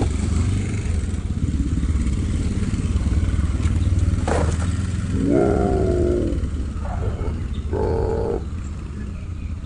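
A motor engine running steadily with a low rumble, with two short higher-pitched sounds about halfway through.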